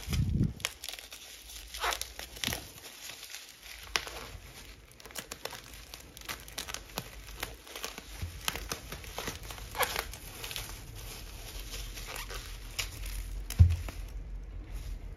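Bubble wrap crinkling and rustling as it is handled and pulled off a paperback book, with many small crackles. Two low thumps stand out, one just after the start and a louder one near the end.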